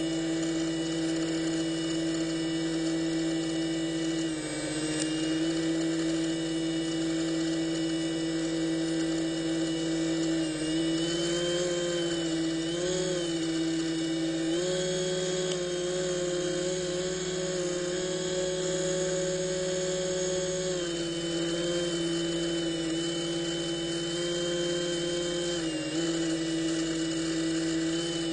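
Electric drive motor and propeller of a Robbe Seawolf radio-controlled model submarine whining steadily underwater. The pitch shifts with the throttle: a short dip about four seconds in, a rise around eleven seconds, a steady higher note from about fifteen to twenty-one seconds, then back down, with another short dip near the end.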